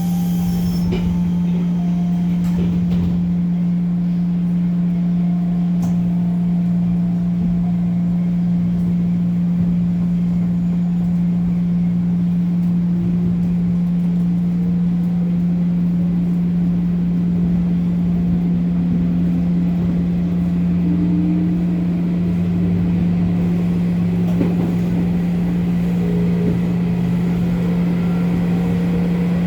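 Inside a JR 205 series electric train's motor car pulling away and accelerating: the traction motor and gear whine slowly rises in pitch over a steady low hum and rumbling wheel-on-rail noise.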